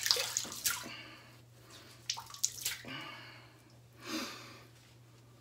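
Water splashing and dripping into a bathroom sink in a few short bursts as a warm wet washcloth is wrung out; a softer swell of sound about four seconds in.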